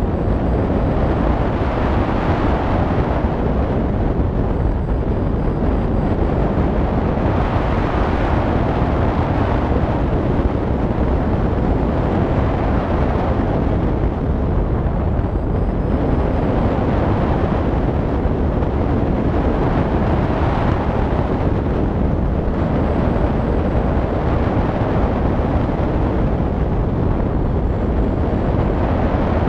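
Wind rushing over a hang glider's wing-mounted camera microphone in flight: a loud, steady rush that swells and eases every few seconds.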